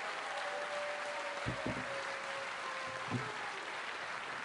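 Audience applause, steady throughout, with a couple of dull low thumps.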